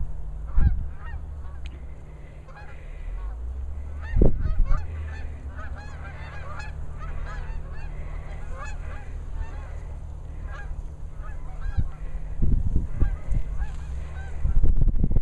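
A flock of geese honking, many overlapping calls throughout, with a few low thumps on the microphone.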